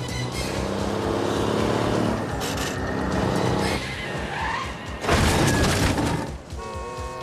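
Film soundtrack: a Freightliner cab-over semi truck's diesel engine runs hard as it charges, with film score underneath. About five seconds in there is a loud, sudden crash as it smashes into cars. A small dirt-bike engine is heard again near the end.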